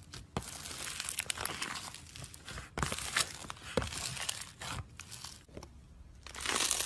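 Hands squeezing and stretching slime, making crackling, crinkly popping sounds in irregular bursts, with a short lull about five to six seconds in.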